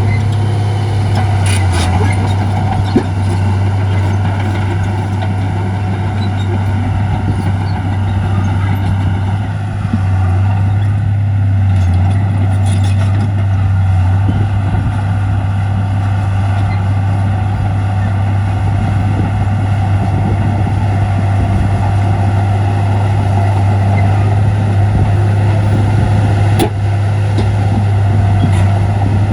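Heavy diesel earthmoving machinery running steadily, a constant low engine note, with a few short knocks now and then.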